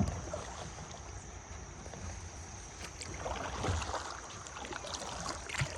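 Kayak paddle strokes dipping and splashing in river water, with a louder splash about three seconds in over steady water and wind noise.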